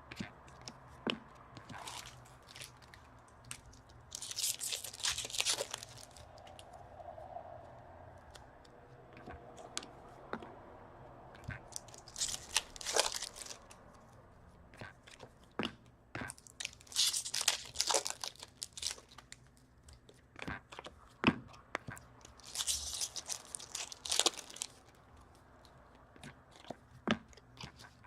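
Foil trading-card packs being torn open and crinkled, in separate bursts of rustling several seconds apart, with light clicks and taps of cards being handled between them.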